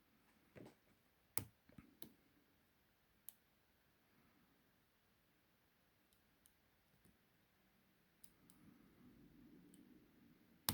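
Faint, scattered metallic clicks from a lock pick and tension wrench working the pins of a 50 mm laminated padlock, several in the first couple of seconds, with a sharper click near the end that is the pick slipping rather than a pin setting.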